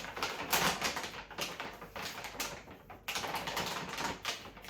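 Quick, irregular clicks and light clatter of small hard items being handled while loading a dishwasher.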